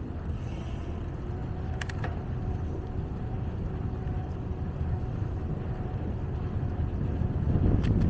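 Steady low wind rumble on the microphone and tyre noise from a small-wheeled folding bicycle being ridden along a path, with a few sharp clicks about two seconds in and again near the end.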